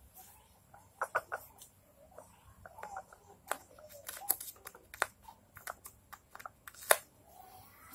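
Hands pressing and smoothing masking tape over a motorcycle cylinder head: irregular crinkles of the paper tape with scattered taps and clicks as the head is handled.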